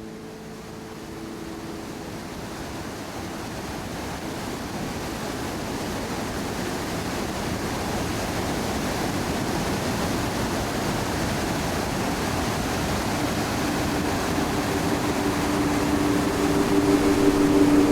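Rushing water of a waterfall: a steady hiss that grows slowly louder, with sustained music notes coming in near the end.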